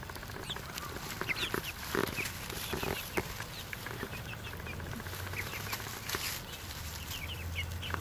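A small flock of pullets (young hens) peeping and clucking softly while they forage, in many short, high chirps. Scratching and rustling in pine straw comes and goes, most of it in the first half.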